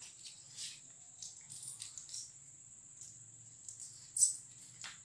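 Quiet room with faint scattered rustles and light clicks over a steady high-pitched whine, and one sharper click about four seconds in.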